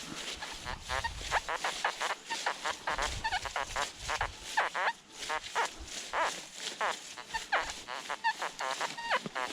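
Geese honking over and over in a rapid run of short calls.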